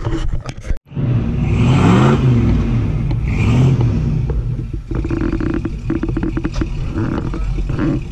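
Ford Bronco's engine revving up and back down twice, then running steadily.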